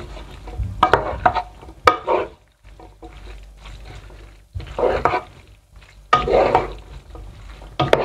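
Cooked white beans, onions and oil being stirred together in a baking tray: wet stirring noise in separate bursts with short pauses between, and a few sharp clicks.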